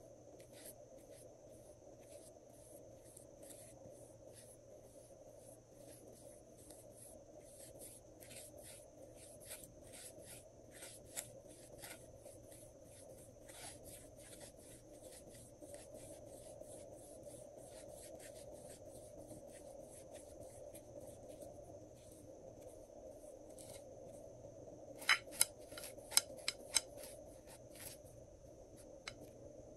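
Glossy slime being worked by hand, making irregular sticky clicks and little crackling pops, with a run of louder pops near the end.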